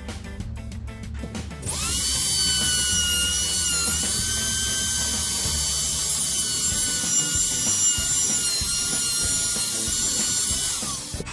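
Handheld wood router spinning up about two seconds in and running at a steady high whine as it cuts a hinge rebate into a door edge, its pitch dipping slightly under load about four seconds in, then switching off near the end.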